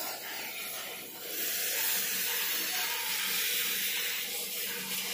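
Oxy-fuel cutting torch hissing steadily as its jet cuts through steel, throwing sparks. The hiss grows louder about a second in and holds.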